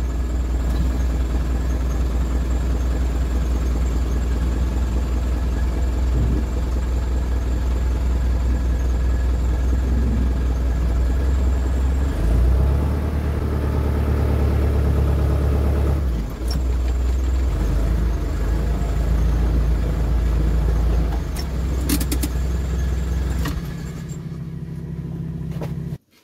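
Renault Ceres 340X tractor's diesel engine running, heard from inside the cab as it is driven. The engine note changes twice around the middle, and a few sharp clicks come about three-quarters of the way through.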